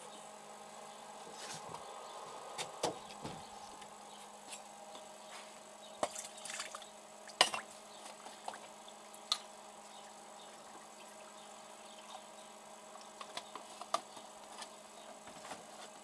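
Espresso trickling and dripping from the groups of a two-group Gaggia lever espresso machine into paper cups, over a faint steady hum. Scattered light clicks and knocks come through, the sharpest about seven seconds in.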